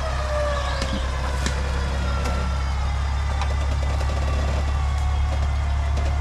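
An off-road 4x4's engine running steadily, with a faint whine that falls in pitch in the first second or so.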